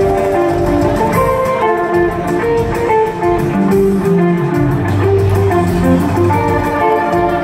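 Live band music heard from the audience of a concert hall: a guitar playing a picked melody over a deep bass line.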